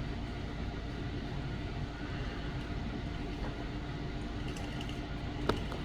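Steady background hum and hiss of room noise, with a couple of light clicks near the end.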